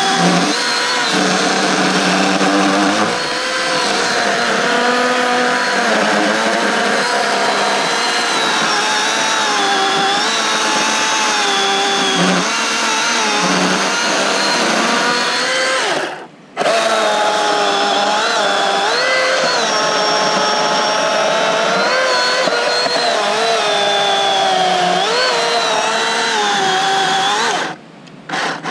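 Milwaukee M18 Fuel cordless electric chainsaw cutting through a fallen log: the motor's whine sags and recovers as the chain bites into the wood. It stops briefly a little past halfway, and twice more in quick succession near the end.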